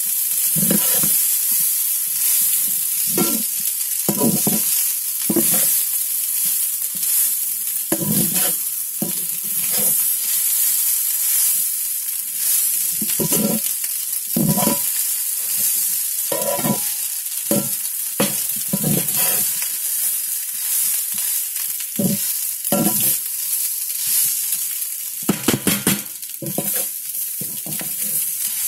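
A metal spoon scraping and knocking against a kadai in irregular strokes as cooked rice is tossed into potato masala, over a steady sizzle of frying.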